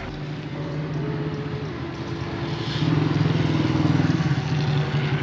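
Small commuter motorcycle engine running steadily as the bike rides up, getting louder about three seconds in as it comes close.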